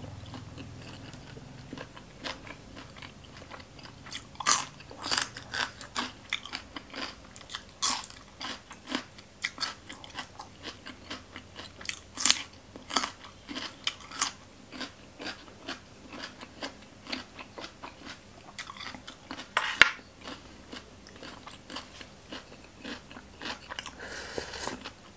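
Close-miked chewing and biting of crunchy food: green papaya salad and raw vegetables, ASMR-style, with a stream of sharp crisp crunches and wet mouth sounds. A short slurp comes near the end as a spoon of soup reaches the mouth.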